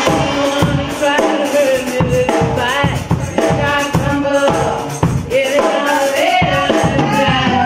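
Live band music with a woman singing into a microphone over a steady drum beat.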